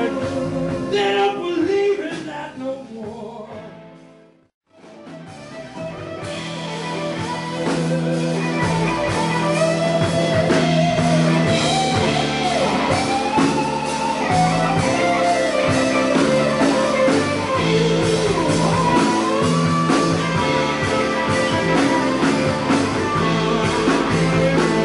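Live blues-rock band playing, with a Stratocaster-style electric guitar over bass and drums. The music fades to silence about four seconds in and fades back up. From about eight seconds the guitar plays a lead with bent notes.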